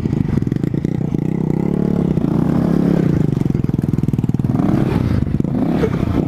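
Motorcycle engine running under way, its revs rising and falling repeatedly as the throttle is worked.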